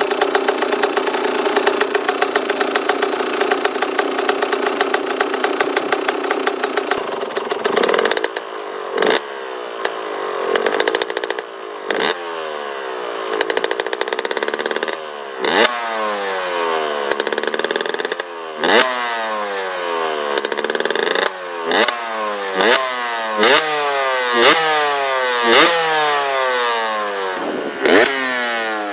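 KTM 125 EXC single-cylinder two-stroke dirt bike engine with an FMF exhaust, held at a steady speed for the first several seconds. It is then blipped repeatedly, about a dozen sharp revs, each falling back in pitch before the next.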